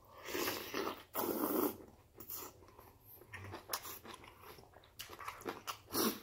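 A person slurping broth-soaked noodles, with two loud slurps in the first two seconds. Wet chewing and small mouth clicks follow, with another short slurp near the end.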